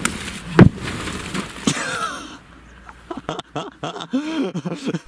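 A festival-ball firework shell bursts with a single sharp, loud bang about half a second in, followed by a short rush of noise that dies away over the next second or two.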